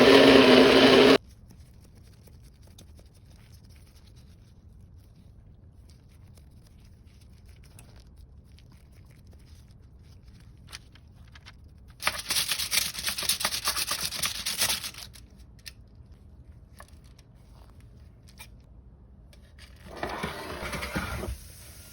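An electric kitchen blending appliance running loudly and cutting off about a second in, followed by quiet scraping and clicking of food preparation. A louder, rough scraping stretch of about three seconds comes midway, and a shorter one comes near the end.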